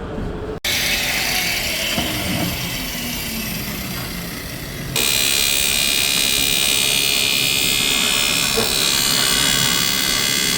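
Loud workshop machinery noise from wheel repair work, in two hard-cut segments. The first is a steady rushing noise; the second, starting about halfway through, is louder and carries a steady high-pitched whine over it.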